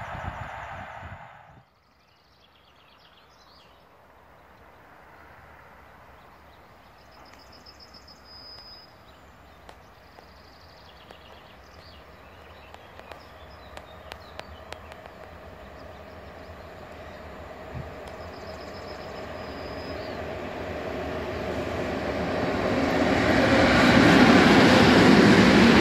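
PKP Cargo electric freight locomotive hauling hopper wagons, approaching from far off: its rumble and wheel noise grow steadily over some twenty seconds and become loud as it passes close near the end. Birds twitter faintly while it is still distant. A louder rushing noise cuts off abruptly at the very start.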